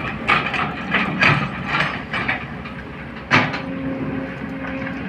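Crawler excavator at work: a run of sharp clanks and knocks, the loudest about three and a half seconds in, after which its engine settles into a steady tone.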